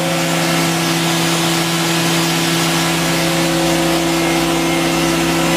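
Daewoo DHC400 horizontal machining center running: a steady hum of several held pitches under an even hiss.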